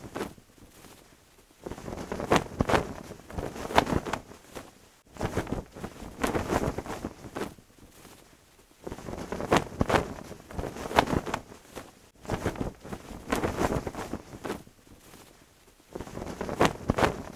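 Wind gusting and a cloth flag flapping, with sharp snaps, in gusts of a few seconds broken by short lulls.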